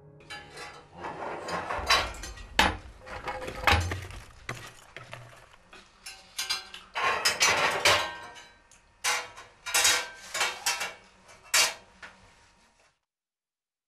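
Dishes and pots clattering: a long run of irregular clinks and knocks, some sharper and louder than others, that stops near the end.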